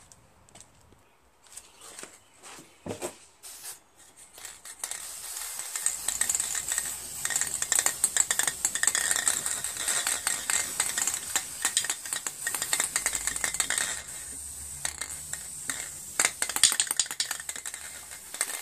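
A few faint clicks, then about five seconds in an aerosol can of gloss black spray paint hissing in a long, crackly, sputtering spray as the can runs nearly empty. The spray weakens near the end, with a few last spurts.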